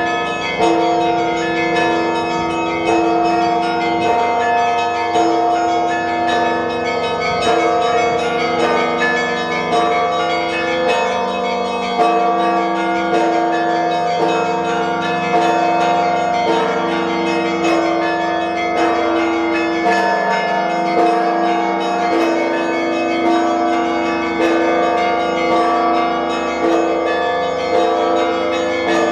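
Russian Orthodox church bells ringing a continuous peal. Several bells at different pitches sound together: smaller bells are struck in quick succession over sustained deeper bells, with a heavier stroke about every two to two and a half seconds.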